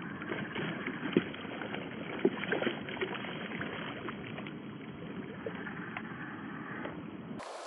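Steady rush of flowing river water with several sharp splashes, the loudest about a second and two seconds in, as a hooked cherry salmon thrashes at the surface.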